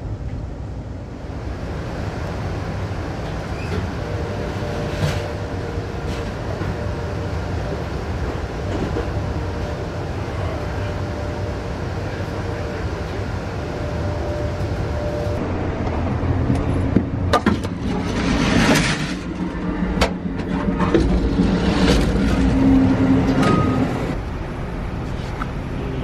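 Amtrak passenger train running, heard from inside the car: a steady low rumble of wheels on the track. In the second half, sharp knocks and clatter sound over it.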